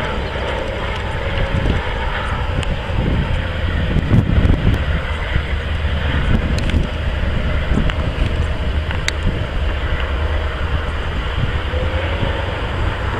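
Wind buffeting the microphone in uneven gusts, with a steady low rumble underneath.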